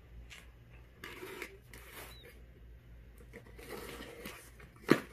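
A small cardboard box being handled on a padded bench: faint scraping and rubbing of cardboard, with one sharp knock near the end.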